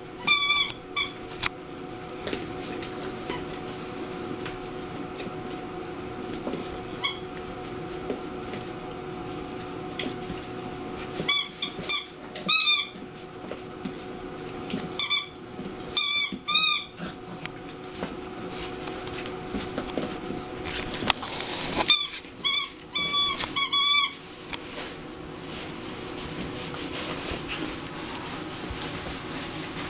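Rubber chicken squeaky toy squeaking as puppies chew and play with it. Short, high, wavering squeaks come in clusters of two to four, five or six times, over a faint steady hum.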